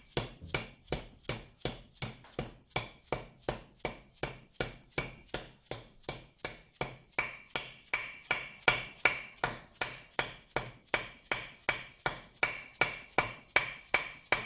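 Hammer blows driving a new bush into the tail of a Ford C4 automatic transmission case: steady metallic taps about three a second, each with a short ring. The taps grow a little harder in the second half and stop suddenly as the bush seats flush.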